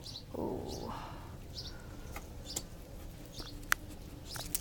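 A small bird chirping over and over, short high chirps coming about once or twice a second, with a few sharp clicks in the second half.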